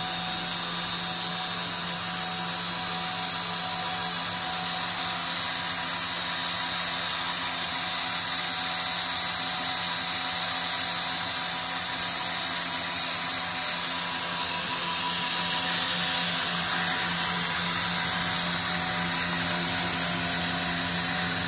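Food extruder running steadily: its belt-driven electric motor and screw give a constant hum with a high whine over a mechanical rush.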